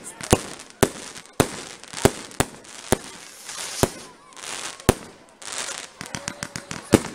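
Fireworks going off: a string of sharp bangs at irregular spacing with crackling hiss between them, and a quick run of small pops about six to seven seconds in.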